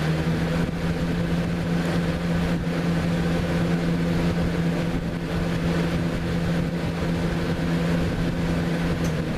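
1999 Lasko box fan model 3733 running on its high setting at full speed: a steady motor hum over an even rush of air.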